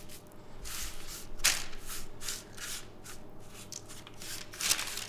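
Hands spreading seasoned coconut flakes across a parchment-lined baking sheet: a run of soft, irregular rustling and crinkling strokes, about two a second. The loudest comes about a second and a half in.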